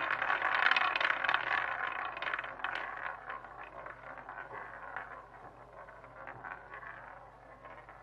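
A rattling clatter of many small clicks over a hiss, loud at first and fading away over several seconds.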